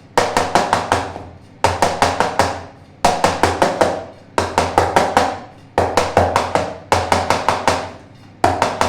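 A cake tin full of batter is tapped again and again on a counter, in about seven bursts of five or six quick knocks each, with a slight ring after each burst. The tapping knocks trapped air bubbles out of the batter before baking.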